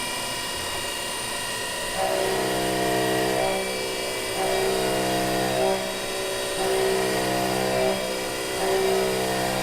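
CNC milling machine running a cutting operation on bar stock: a steady spindle whine with several tones, joined about two seconds in by a louder, wavering set of tones as the tool cuts.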